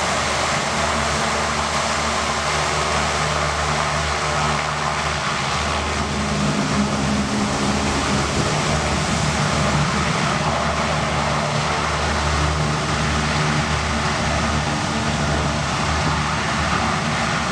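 U.S. Navy LCAC air-cushion hovercraft running under power, its gas turbines and big shrouded propellers making a steady roar with a low droning hum, mixed with the rush of the spray it throws up.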